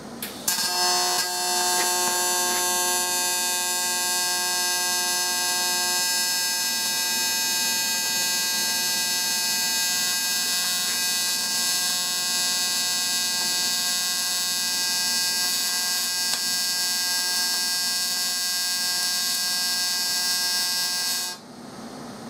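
AC TIG welding arc on cast aluminium, set to 175 Hz, buzzing steadily with a high-pitched, many-toned hum. It strikes about half a second in and cuts off abruptly about a second before the end.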